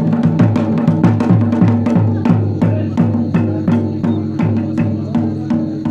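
Fast, even drumming, about five strokes a second, over steady sustained low notes: dance music for a costumed performer.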